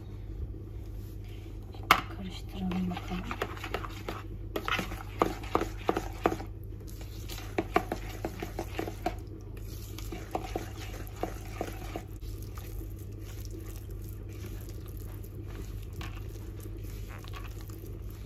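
A utensil stirring flour into poğaça dough in a bowl, with clinks and scrapes against the bowl that are busiest from about four to twelve seconds in, over a steady low hum. A single sharp knock about two seconds in is the loudest sound.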